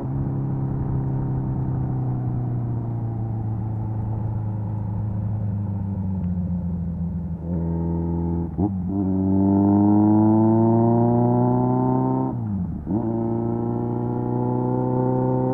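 Kawasaki Z900's 948cc inline-four running through an SC Project exhaust. The engine note sinks slowly while cruising, then rises as the bike accelerates. It breaks briefly twice, about halfway through and again near the end, as the rider shifts up.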